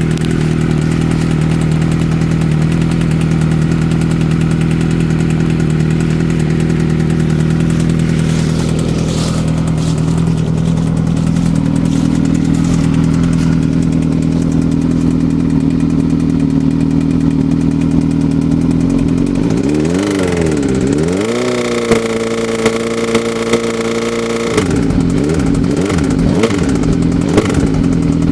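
Engine idling steadily. About twenty seconds in its speed dips and rises, then holds higher for about three seconds before dropping back to idle, with a few sharp ticks. The owner calls the noise bad, a sign of some engine fault.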